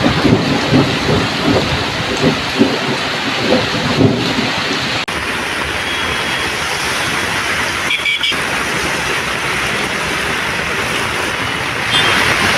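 Heavy rain falling, pattering hard for the first few seconds, then a steady hiss. The sound drops out sharply about five seconds in and again briefly about eight seconds in.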